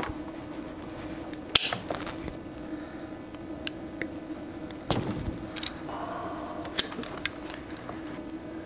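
Scattered sharp clicks of a wire stripper and of wiring being handled, the loudest about one and a half seconds in, over a steady low hum.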